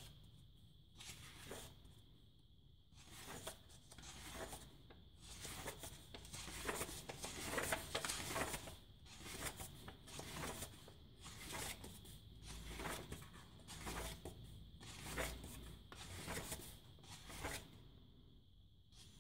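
Paper pages of a paperback book being turned by hand one after another, each turn a soft papery rustle and flap, the turns coming thicker and faster in the middle.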